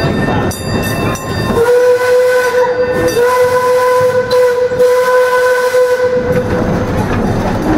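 Steam locomotive whistle of the Cedar Point & Lake Erie Railroad's engine #22 Myron H., one long steady blast of about four and a half seconds, starting about a second and a half in. The train's running rumble comes before it.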